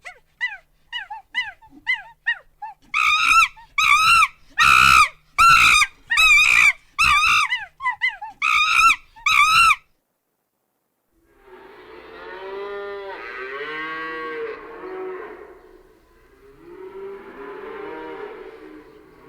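An eagle calling: a quick run of small falling chirps, then about nine loud, shrill screams, the last near the ten-second mark. After a brief silence, cattle moo in two long, drawn-out lows.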